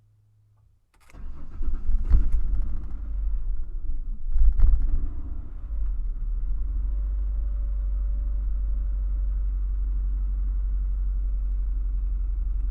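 A 2001 Ford Explorer Sport's V6 cranks and catches about a second in. It surges twice and then settles into a steady idle. This is a delayed cold start on a roughly 46 °F day, which the owner suspects comes from a fuel pump too weak on the crank.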